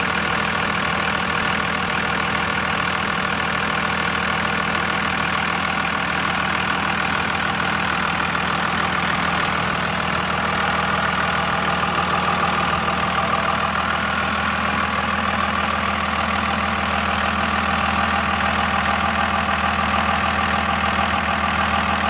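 The 5.9-litre Cummins turbo-diesel inline-six of a 2001 Dodge Ram 2500 idling steadily.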